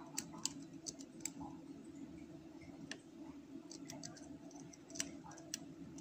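Faint, scattered small metallic clicks of a deep hook pick working the pins of a lock cylinder held under tension, with several clicks in the first second and a half and a few more later.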